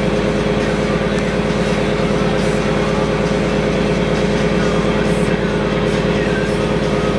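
Fishing boat's engine running steadily, a loud constant drone with no change in pitch.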